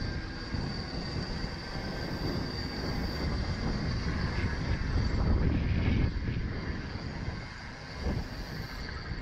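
Wind rumbling on the microphone of a camera riding on a moving bicycle, with tyres rolling on tarmac. The rumble swells about five seconds in and eases again near the end, and a faint steady high whine runs underneath.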